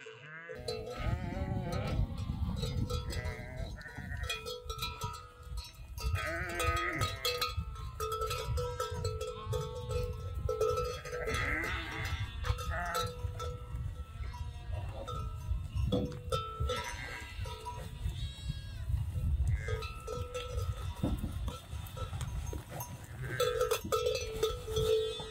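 Flock of sheep and goats bleating again and again, with a bell ringing among them, over a steady low rumble.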